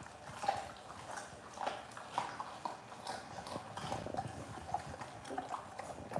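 American Bully dog gnawing and chewing raw meat and bone, an irregular run of wet crunches and clicks.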